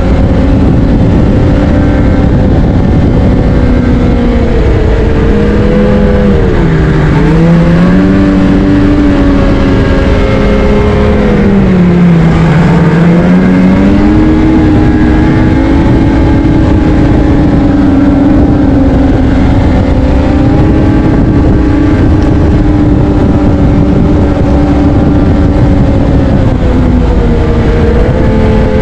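Snowmobile engine running at speed, with a steady rumble under it; its pitch dips twice, about six and twelve seconds in, then climbs back up.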